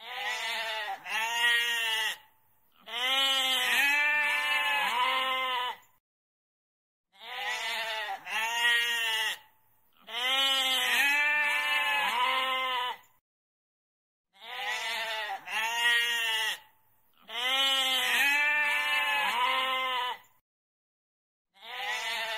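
Goat bleating: two short bleats followed by one long, wavering bleat. The same pattern repeats three times, about every seven and a half seconds, with silent gaps between.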